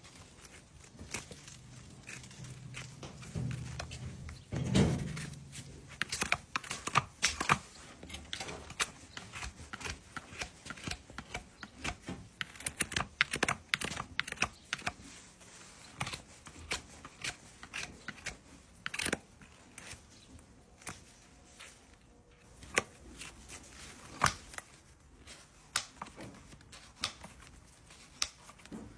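Farrier's hoof-trimming tools working on a draft horse's hoof: irregular short clicks and scraping cuts, with a louder thump about five seconds in.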